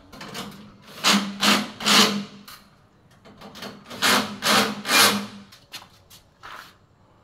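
Six short rasping strokes in two runs of three, about half a second apart, from hand work at the pipe connections of an air-conditioner outdoor unit, followed by a few faint ticks.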